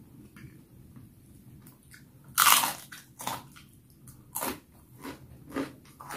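A person biting and chewing baso tahu close to the microphone. One loud crunchy bite comes about two and a half seconds in, followed by several shorter, softer crunches as she chews.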